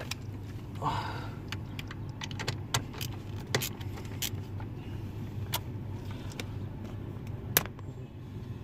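Scattered clicks and light rattles of a car's wiring harness and plastic connectors being handled under the dashboard, with one louder click near the end, over a steady low hum.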